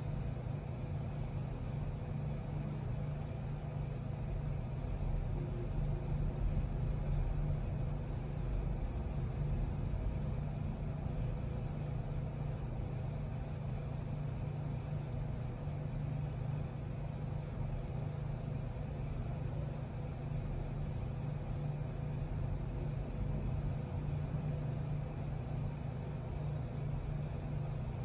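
Steady low hum and rumble with a faint steady tone above it, unchanging throughout.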